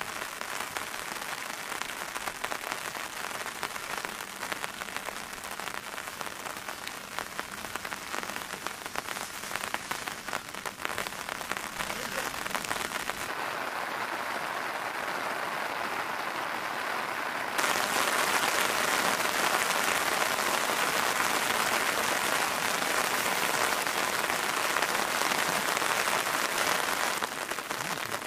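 Steady rain falling, an even hiss of drops. About 13 seconds in it turns duller, and from about 18 seconds it is louder and brighter.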